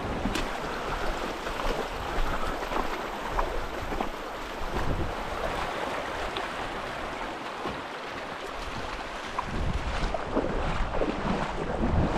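Shallow, fast creek water rushing over a cobble bed, with splashing from boots wading through it. Wind buffets the microphone, more in the last few seconds.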